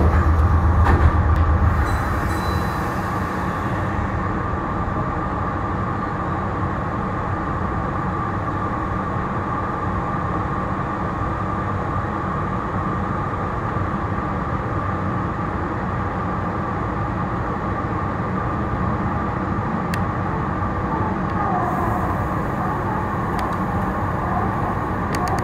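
Meitetsu electric train running, a steady rolling rumble with a strong low hum in the first two seconds. About three-quarters of the way through a brief falling whine is heard, as the train nears Higashi-Okazaki.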